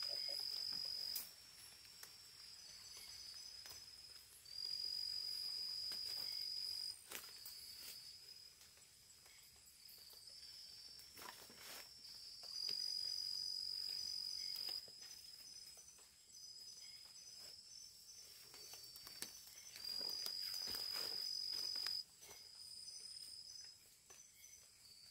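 Insects calling: one loud, high-pitched, steady trill sounds four times, each lasting about two seconds. Fainter insect calls at slightly different pitches go on between them.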